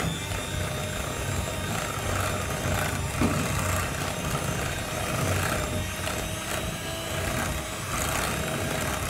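Electric hand mixer running steadily, its twin beaters whisking thick hung curd with sugar and thandai paste in a glass bowl.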